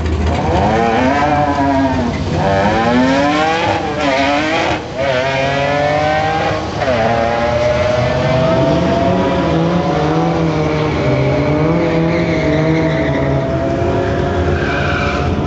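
Two drag-racing cars, one a supercharged Hyundai Tiburon, launching off the line at full throttle and accelerating through the gears. The engine pitch climbs and drops back at each gear change, four times in the first seven seconds, then holds one long, slowly climbing pull as the cars run down the strip.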